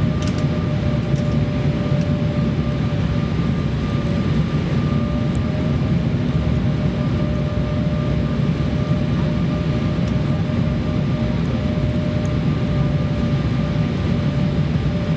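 Steady cabin noise inside an Embraer ERJ-170 jet on approach to landing, heard from a rear seat: a constant low rush of turbofan engine and airflow noise with a faint steady hum on top.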